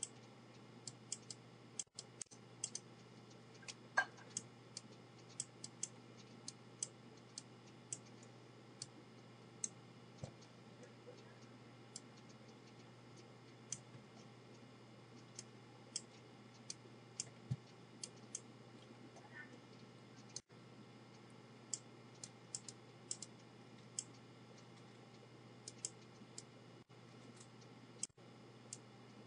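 Computer mouse buttons clicking, short sharp clicks at an uneven pace while drawing, over a faint steady low hum.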